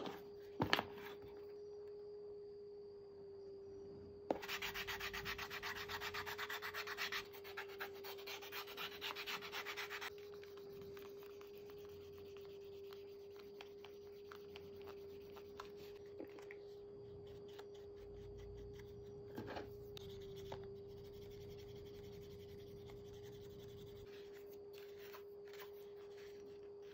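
Fast back-and-forth rubbing on the edge of a leather knife sheath during edge finishing, running for about six seconds starting a few seconds in, then only occasional quieter rubs and handling. A faint steady hum sits underneath throughout.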